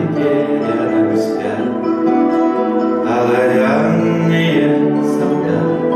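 Man singing a song with his own classical guitar accompaniment, holding long sung notes over plucked nylon strings.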